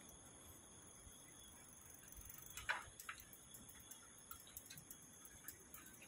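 Faint, steady night-insect chorus: crickets trilling at several high pitches, with a light ticking. A short, sharp sound stands out about halfway through, with a weaker one right after it.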